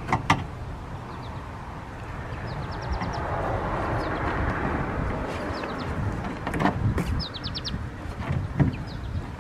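A screwdriver clicking and knocking against a plastic RV sewer pipe fitting as it is worked in to pry the old pipe stub loose, with a few sharp clicks, loudest near the end. A bird gives two quick runs of rapid high chirps, and a broad rushing sound swells and fades in the middle.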